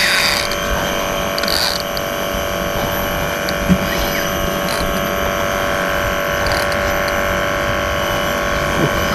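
A boat motor running with a steady whining hum, with a few short knocks and rustles over it.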